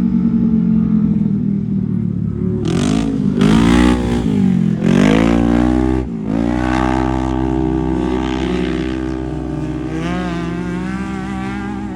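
Off-road racing UTV engine running hard. Its pitch drops and climbs sharply several times about three to six seconds in as the throttle comes off and back on, then it runs steadily again and rises slightly near the end.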